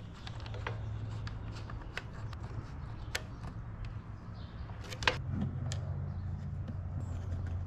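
Scattered light clicks and taps of cables and plastic plug connectors being handled and pushed into a Garmin LiveScope sonar black box, with one sharper click about five seconds in. A steady low hum runs underneath.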